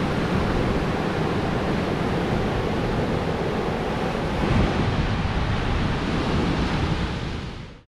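Small sea waves washing up and running back on a sandy beach: a steady wash of surf, with wind rumbling on the microphone. It fades out just before the end.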